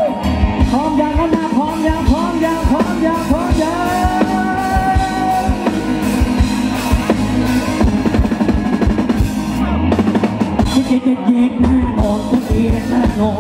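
Live rock band playing a loud instrumental stretch between vocal lines: drum kit with steady beats and electric guitars, the lead line bending up and down in the first half.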